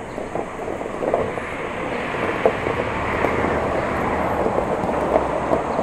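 Vehicle noise: a steady rushing sound that swells about a second in and holds.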